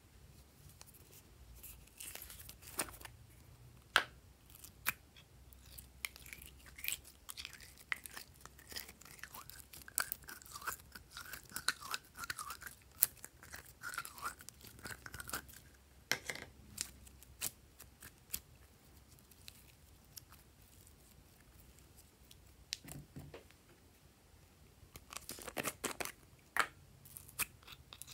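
Soft, sticky slime being scooped and stretched out of small plastic jars by hand, giving a scattered run of small wet clicks, crackles and pops.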